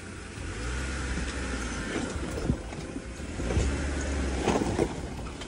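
Jeep Gladiator crawling slowly over rocks: a low engine rumble that swells twice, with a few short knocks about halfway through and again near the end.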